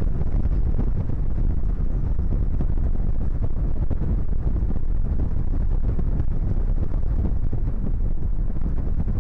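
Wind buffeting the microphone of an outdoor nest camera: a loud, steady low rumble.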